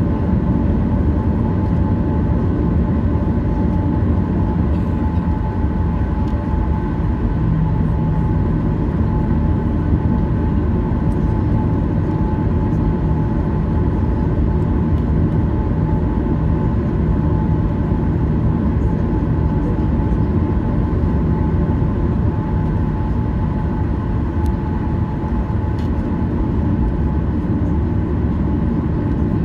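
Cabin noise inside a Boeing 737-800 as it taxis: the CFM56-7 engines run at low, steady power, a constant rumble with a steady whine over it.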